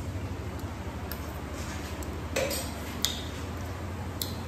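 A few light clinks and clicks of dishes and utensils while someone eats, over a steady low hum.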